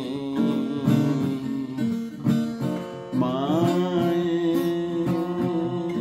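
Music: a plucked acoustic guitar, with a sung melody line that comes in about three seconds in and is held.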